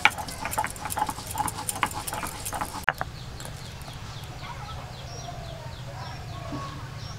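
Stone pestle knocking and grinding on a flat stone grinding slab (shil-nora) as ginger is ground to a paste: a quick run of sharp clacks for about three seconds, ending in one louder clack.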